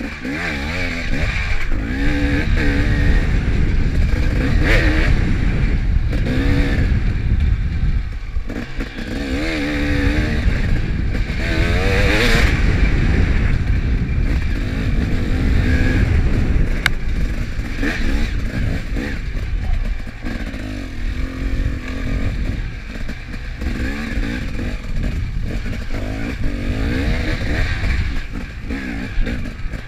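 Off-road dirt bike engine heard from on board, revving up and falling back again and again as the rider accelerates and backs off along a rough trail. The revs dip sharply around 8 seconds in, and the engine runs less hard over the last third.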